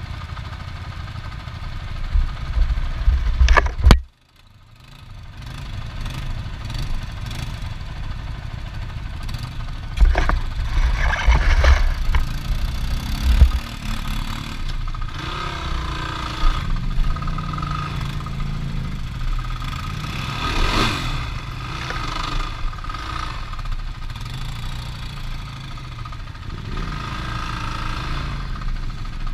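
Off-road vehicle engine running, its pitch rising and falling with the throttle. The sound cuts out abruptly about four seconds in, then fades back up.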